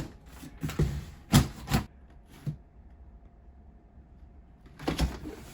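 Cardboard shipping box being opened and handled: a few sharp knocks and scraping rustles in the first two seconds, a pause, then another rustle near the end.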